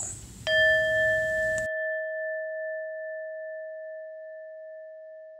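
A bowl-shaped meditation bell struck once about half a second in, ringing with a clear tone and higher overtones that fade slowly, marking the close of a recited prayer.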